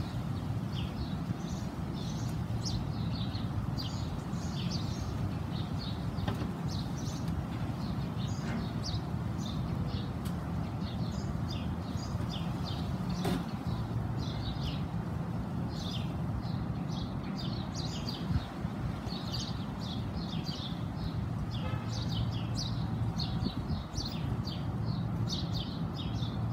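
Many small birds chirping in quick, overlapping short calls, over a steady low rumble.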